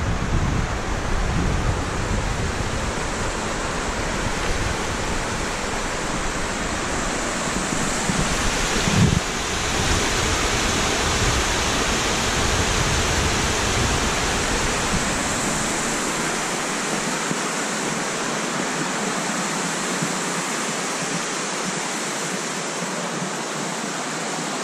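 Steady rush of a stream cascading over rock ledges at the lip of a waterfall, with wind buffeting the microphone as a gusty low rumble through the first two-thirds. There is a brief low thump about nine seconds in.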